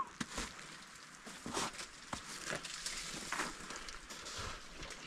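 Faint, scattered scuffs and knocks, roughly one a second, of someone moving and climbing down over rock.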